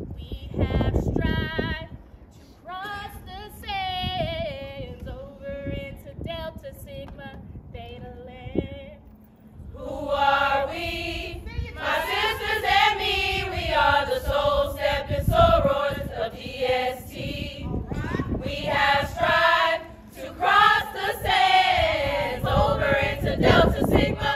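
A group of women singing in chorus, unaccompanied. A single voice with vibrato carries the song for several seconds before the fuller group comes in about ten seconds in.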